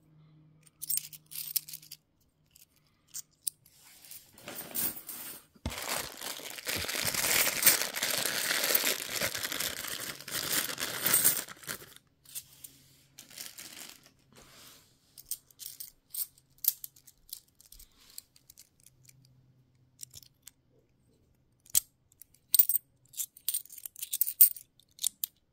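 50p coins clicking and clinking as they are handled and sorted one at a time. About five seconds in there is a louder stretch of rustling, several seconds long.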